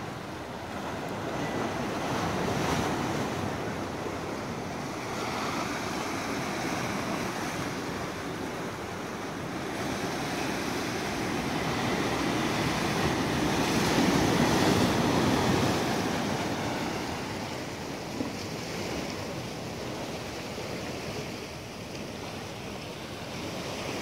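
Ocean surf washing and breaking against rocks, a continuous rushing that swells with each wave and is loudest a little past halfway through.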